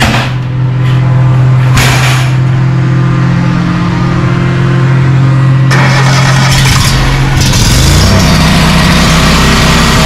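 A petrol engine on a powered machine running steadily at speed. About six seconds in, a loud rough rushing noise joins it, and near eight seconds the engine note changes and stays lower and heavier.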